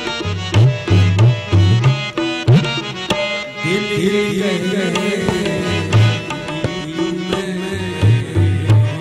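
Live ghazal music: tabla playing a steady rhythm with deep bass-drum strokes that bend in pitch, over held accompaniment notes. A male voice sings a long, ornamented phrase through the middle.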